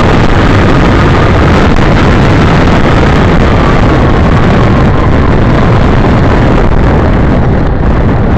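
Car driving along a street, heard from a dashcam inside the cabin: a loud, steady rumble of road and wind noise.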